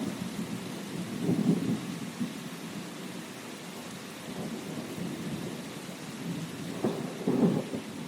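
Steady rain with rumbling thunder; two louder low rumbles swell up about a second and a half in and again near the end.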